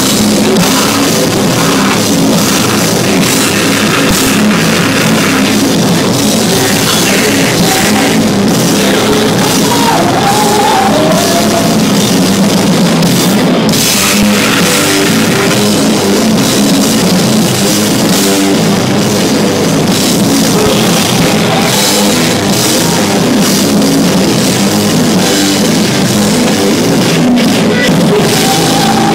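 Rock band playing live at full volume: distorted electric guitars, bass and a drum kit in a heavy, driving section with little or no singing.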